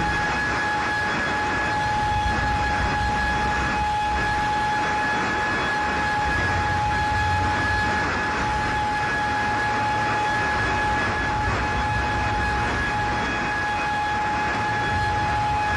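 Steady, loud industrial din in a steel shop with a continuous high alarm tone held at one pitch throughout, while molten metal spills from a crane-hung ladle.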